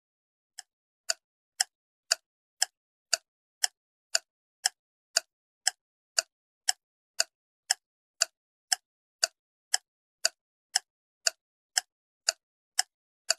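Countdown ticking sound effect: sharp, evenly spaced ticks, about two a second, keeping time while the puzzle is up.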